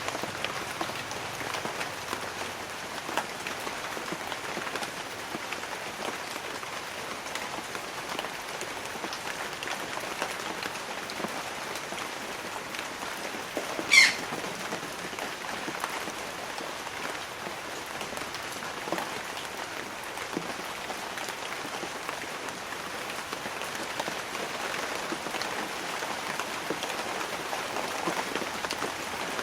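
Light rain falling steadily on banana leaves, an even hiss of many small drops. About halfway through, one brief, sharp high-pitched chirp stands out as the loudest sound.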